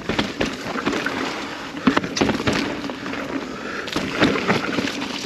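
Kona Process X mountain bike riding down a rough dirt and rock trail: a steady rolling noise from the tyres, broken by sharp clacks and knocks from the bike over bumps at irregular intervals.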